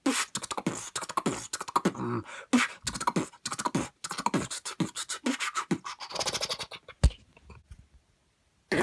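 Mouth beatboxing: a fast run of vocal kick, snare and hi-hat sounds mixed with short pitched bass notes. It stops about six and a half seconds in, followed by a single sharp click and then near silence.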